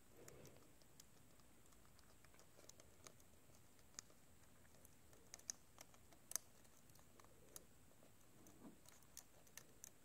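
Faint, irregular small clicks and ticks of fingertips pushing an iPad digitizer's thin flex ribbon cable into its connector on the logic board, more frequent in the second half.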